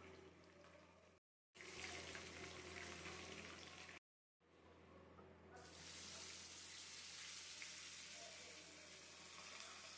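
Faint, steady hiss of food cooking in a pot. It drops to dead silence twice in the first few seconds, then grows brighter and hissier about five and a half seconds in.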